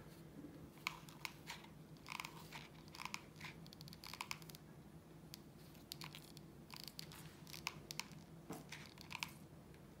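Faint scattered clicks and crinkles from handling the furnace-filter fabric and hot glue gun, over a low steady hum.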